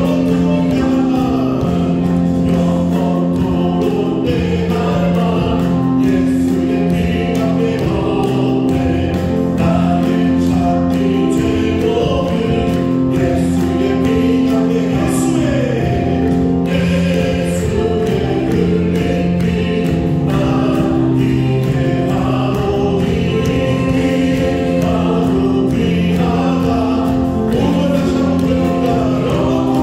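Church praise team singing a worship song together as a group, backed by keyboard, bass guitar and drums keeping a steady beat.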